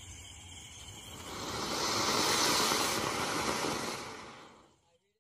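Ground firework spraying sparks with a rushing hiss that swells about a second in and dies away near the end.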